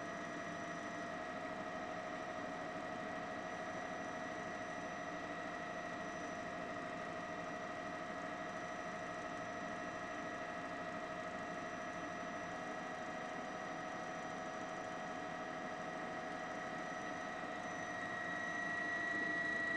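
Helicopter turbine running steadily, a drone with several high whining tones held at a constant pitch, growing a little louder near the end.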